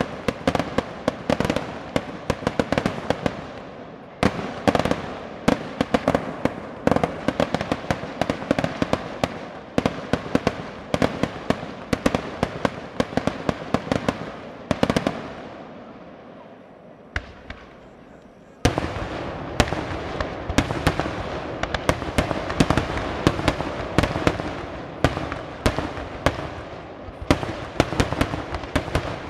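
Fireworks going off in a dense barrage of rapid, sharp bangs and crackles. The barrage thins to a lull about two-thirds of the way through, then starts up again suddenly.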